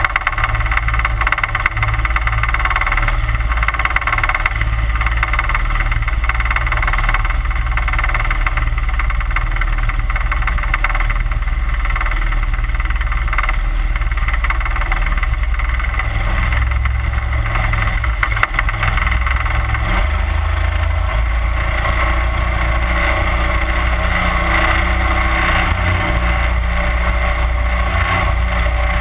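31 hp Mud Buddy Hyperdrive surface-drive mud motor running steadily, pushing a jon boat along at cruising speed with water rushing past the hull. The low engine note grows a little fuller about two-thirds of the way through.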